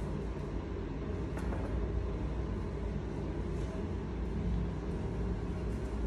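Steady low background rumble, like distant traffic or a running motor.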